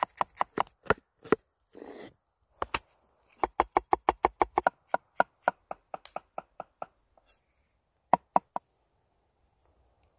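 Cleaver chopping on a wooden cutting board: quick runs of sharp knocks, about six a second at their fastest, then a pause and two last strikes near the end.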